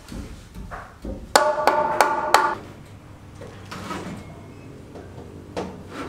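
A hammer striking metal four times in quick succession, about three blows a second, each blow ringing briefly, amid softer knocks of building work.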